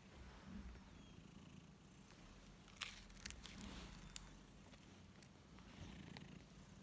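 A sleeping cat's faint, steady low rumble, with a few soft clicks about three seconds in.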